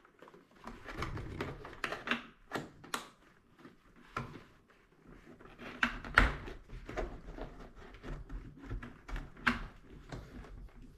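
Irregular plastic clicks, snaps and fabric rustling as the inner padding of an MT Jarama motorcycle helmet is pulled loose from the shell, with the sharpest snap about six seconds in.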